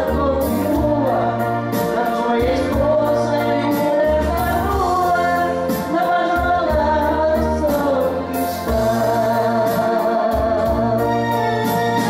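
Karaoke duet: a man and a woman singing through microphones over a recorded backing track with a bass line.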